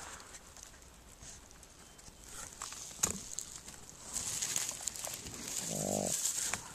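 Dry grass and old stems rustling and crackling as a hand reaches in and picks a morel mushroom, with a sharp click about three seconds in. Near the end comes a short, low, pitched grunt-like vocal sound.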